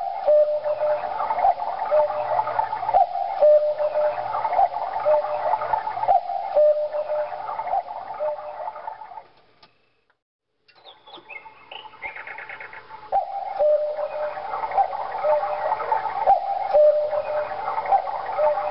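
Quartz cuckoo clock playing its recorded two-note cuckoo call over and over to count the hour, over a recorded waterfall sound. The sound cuts out for a moment about halfway through and then starts again.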